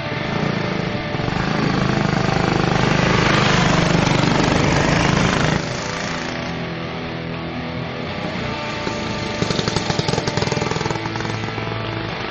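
Background music mixed with the rough buzz of small go-kart engines running. The engines are louder for the first few seconds and cut off abruptly with an edit. A quick rattling patch comes near the end.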